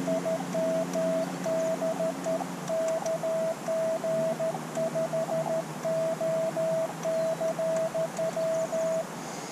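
Morse code (CW) from an Elecraft KX2 ham transceiver: a single-pitch tone keyed in quick dots and dashes over radio band hiss, stopping about half a second before the end. A low hum fades out under it in the first few seconds.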